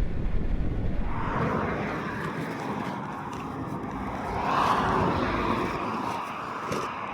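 A motorcycle engine running outdoors, the sound swelling about four to five seconds in and then easing off as it passes.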